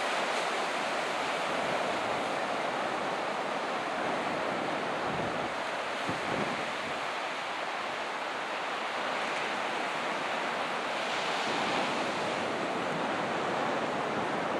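Ocean surf washing onto a sand beach in a steady roar of breaking waves, with wind buffeting the microphone in low rumbling gusts, strongest about five to six seconds in.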